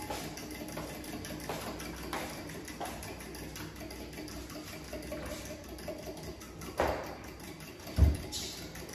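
Spoon stirring and scraping in a bowl of batter, with scattered light clicks and knocks, and a loud dull thump about eight seconds in.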